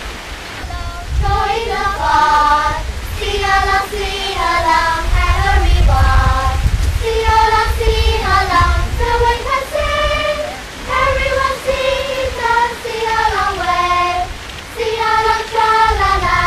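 A group of children singing a song together in unison, in phrases of a few seconds with short breaths between them, starting about a second in.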